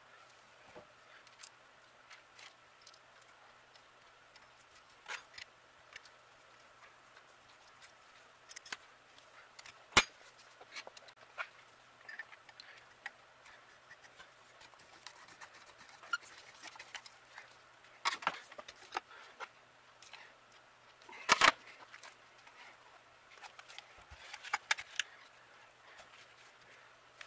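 Light, scattered metal clicks and knocks from handling the parts of a 6-volt Delco Remy generator as it is put back together, with a sharp knock about ten seconds in and the loudest short cluster of clicks about twenty-one seconds in.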